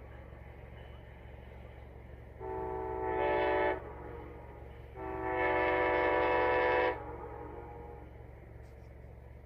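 Train air horn sounding two long blasts, the second longer than the first, over a steady low rumble.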